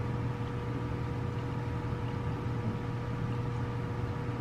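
Steady hum of a vehicle cabin, with a low drone and a couple of faint steady whining tones, like an idling engine and a running air conditioner.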